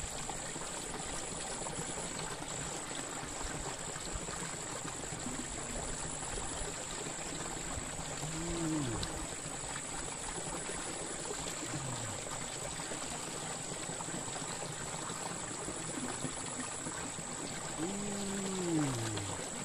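Shallow ditch water trickling and splashing over a small drop, a steady running sound. A steady high-pitched tone runs behind it, and a few short low sounds fall in pitch, the plainest near the end.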